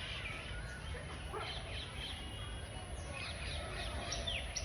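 Several birds chirping and calling over a steady low rumble. About three seconds in, a quick series of high calls begins, each sweeping downward in pitch, about two or three a second.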